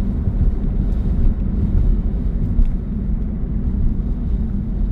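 Car driving, heard from inside the cabin: a steady low rumble of road and wind noise.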